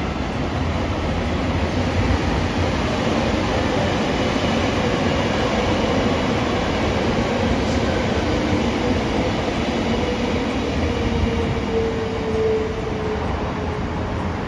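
A train running on the track: a steady rumble of wheels on rail, with a faint tone sliding slowly down in pitch in the later seconds.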